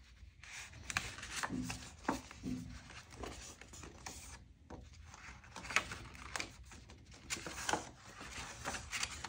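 Paper and card rustling as a folded card envelope of postcards is unfolded by hand: irregular soft scrapes, rubs and flicks of stiff paper.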